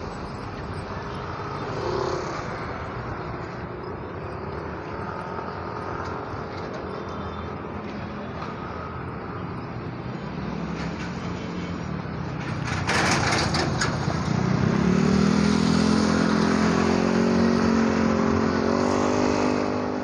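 Street traffic running steadily, with a brief loud hiss about two-thirds of the way in. Then a motor vehicle's engine grows loud as it passes close, its pitch rising slightly, and fades near the end.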